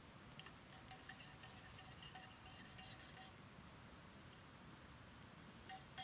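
Near silence, with faint light clinks and brief, thin high tones.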